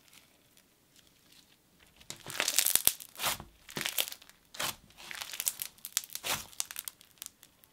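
Green micro floam slime crunching and crackling as hands squeeze, stretch and press its foam beads, in irregular bursts that start about two seconds in.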